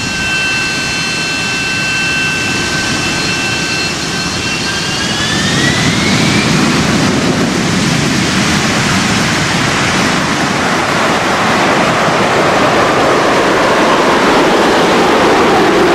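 Jet-engine-like sound effect: a steady high whine rises in pitch about five seconds in, then gives way to a loud rushing noise that keeps building, with a tone sliding slowly downward near the end.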